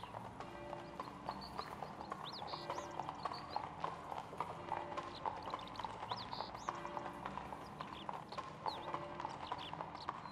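Horse hooves clip-clopping at a steady walk on a paved street, with birds chirping and soft music underneath.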